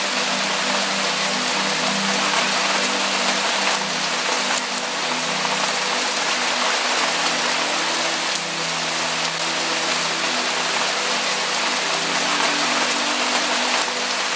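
Steady rain falling, a dense, even hiss with no let-up, over low sustained tones of soft background music.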